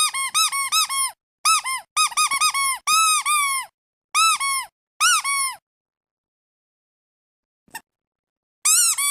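Rapid high squeaks, each rising then dropping in pitch, coming in quick clusters of several a second. They stop for a few seconds, a short click follows, and then the squeaks start again near the end.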